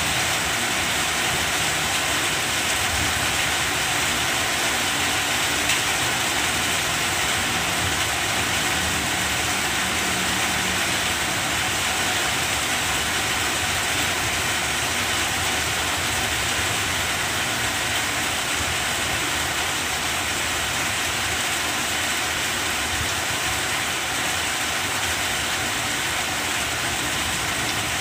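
Steady heavy rainfall pouring on banana plants, an even, unbroken hiss.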